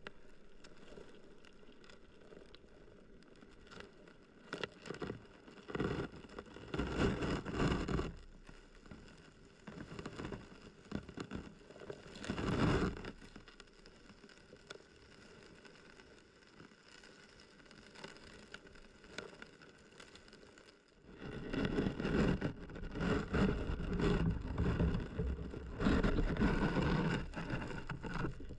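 Muffled rushing and churning of stream water picked up by a submerged camera, with quieter stretches and several louder surges, the longest from about two-thirds of the way through.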